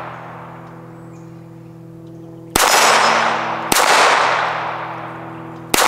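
FN 502 pistol firing three single shots, about a second apart and then about two seconds apart, each followed by a long echo that dies away over a second or two.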